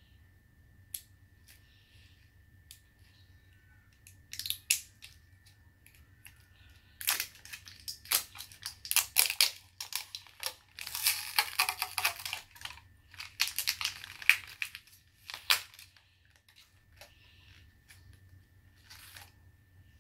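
Wrapping being peeled and torn off an L.O.L. Surprise toy ball: a few faint ticks, a short crinkle about four seconds in, then a long stretch of crinkling and tearing through the middle, and one more brief rustle near the end.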